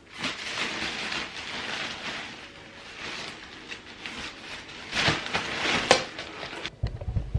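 Rustling and crinkling of plastic packaging and crinkly fabric as a cat toy set and play tunnel are handled, with two louder crinkles late on.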